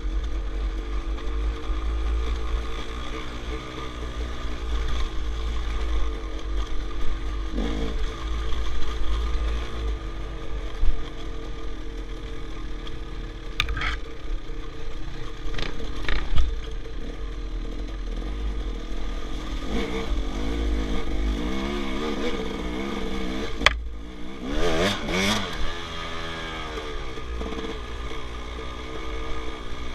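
KTM enduro dirt bike's engine running as it is ridden over trail, the revs rising and falling several times, with a few sharp knocks as the bike goes over rocks. A low wind rumble on the helmet microphone runs underneath.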